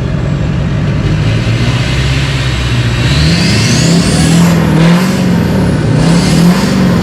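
Duramax turbodiesel engine in a 1957 Chevy truck running through a custom 4-inch titanium exhaust. It revs up about three seconds in, holds, dips and revs again near the end, with a high whistle climbing along with the revs.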